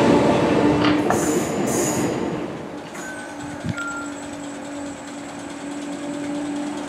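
A Merseyrail electric multiple unit pulls away and its running noise fades, with two short high hissing bursts. Then a Class 508 electric unit running in slowly gives a quieter, steady hum with a constant low tone and a faint high whine.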